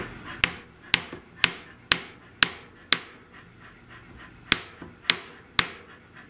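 Hammer flattening the annealed end of a steel saxophone key spring on the anvil face of a bench vise: sharp metal-on-metal blows about two a second, each with a short ring. The blows pause once, for about a second and a half, near the middle.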